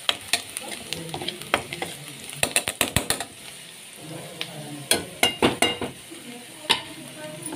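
Chopped onions sizzling in oil in a kadai while a steel spoon stirs them, with sharp clinks and scrapes of the spoon against the pan, in quick runs about two and a half and five seconds in.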